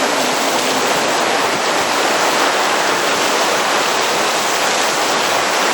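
Torrential rain in a downpour, a dense steady hiss of heavy rainfall.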